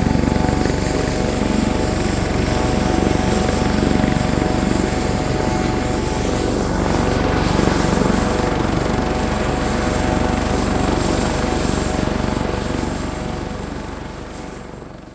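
Helicopter running steadily: rapid chop of the rotor blades under a steady turbine whine. It fades away over the last couple of seconds.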